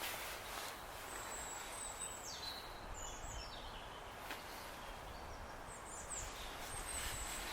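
Small birds giving high, thin calls, several with a short drop in pitch, over a steady low outdoor background, with a few faint clicks.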